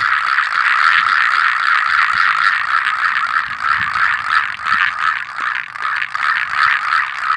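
Frog-call friction drum with a goat-skin membrane, its string dragging over a rosin-coated stick as the drum is whirled round, giving a continuous rasping croak like a green paddy frog. It is made of fast rough pulses, steady at first and more uneven after about three seconds.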